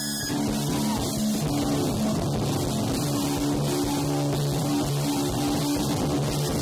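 Noise-rock recording: distorted guitars holding low droning notes over a loud, dense wash of noise, with drums hitting underneath.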